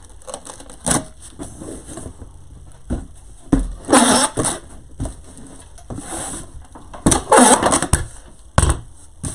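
Packing tape ripping off a handheld tape-gun dispenser in several quick pulls as strips are run onto a cardboard box, the loudest pulls about four seconds in and again a little after seven seconds, with a few dull thumps against the box.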